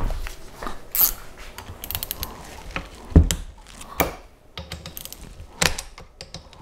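Ratcheting box-end wrench clicking in irregular runs as it backs out the side bolts of a snowblower auger wormcase, with metal knocks among them, the loudest about three seconds in.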